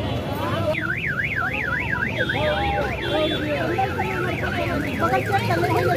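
An electronic warbling alarm tone sweeps quickly up and down in pitch, about four times a second. It starts about a second in and continues over the chatter and street noise of a busy market.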